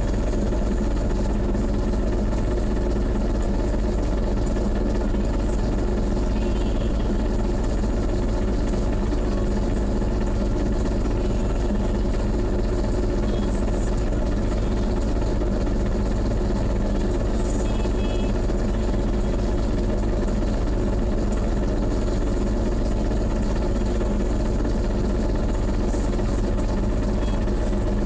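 Engine idling steadily: a constant low hum that holds one pitch throughout.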